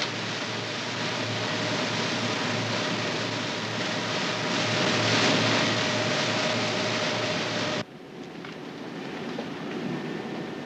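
Motorboat engine running under way, a steady hum over the rush of water from the wake. About eight seconds in it cuts off abruptly to quieter wind and water noise.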